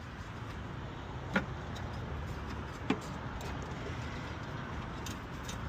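Two short, light clicks about a second and a half apart as the parts of a vending machine's removed delivery bin are handled, over a steady low background rumble.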